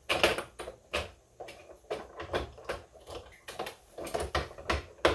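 Irregular plastic clicks and taps as a detachable piece is fitted onto a Silhouette Cameo 4 vinyl cutting machine, its clasp clicking in before the piece slides into place.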